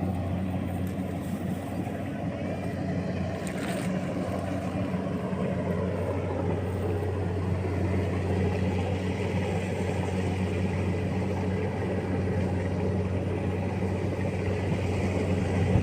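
Rice harvesting machine's engine running steadily in the field, a deep even hum that grows slightly louder over the stretch.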